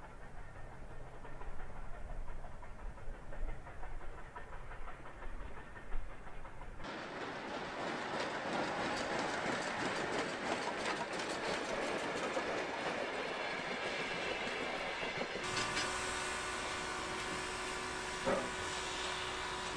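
Steam locomotive hauling its train past, wheels clattering over the rail joints. Near the end, a steady hiss of steam from the locomotive standing still, with a few faint steady tones and one short click.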